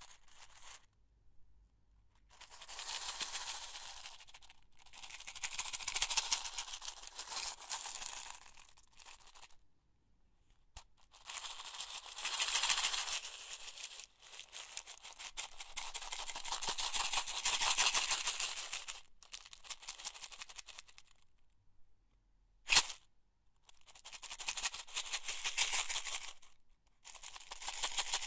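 A box of office pins being shaken and tipped, the metal pins rattling and sliding against each other and the box in several bursts of a few seconds each, with short pauses between. A single sharp click stands out about three-quarters of the way through.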